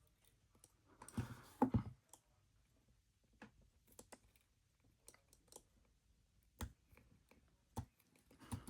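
Faint, scattered small metallic clicks and light rattles of a handcuff being worked with a thin laminate shim slid into its ratchet, a short cluster about a second in, then single clicks every second or so.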